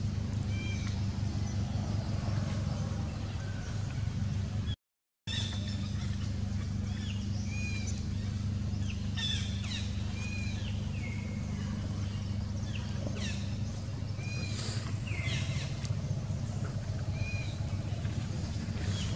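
Outdoor ambience: short, high chirping calls scattered throughout over a steady low hum. The sound cuts out for about half a second around five seconds in.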